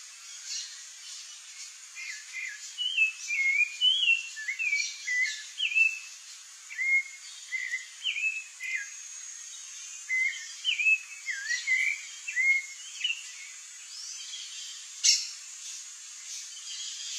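Rufous-bellied thrush singing: a run of short, clear whistled phrases, each a quick up-and-down slur, starting about two seconds in and stopping around thirteen seconds. A single sharp click comes near the end.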